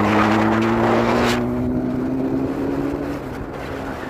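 Motorcycle engine running under way, its note rising slowly in pitch, then fading out about three seconds in. Wind rushes over the microphone for the first second or so.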